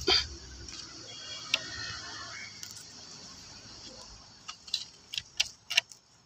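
A hand pulling small weeds out of the soil in a plastic plant pot: a sharp click at the start, soft scraping and rustling, then several light ticks and clicks about four to six seconds in.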